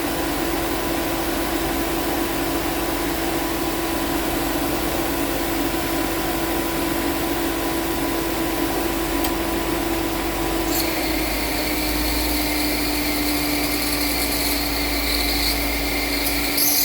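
Ford Ka running with a steady mechanical hum. About eleven seconds in, the hum drops slightly in pitch and a higher whine with a hiss joins it: the noise the car makes when its air conditioning is switched on.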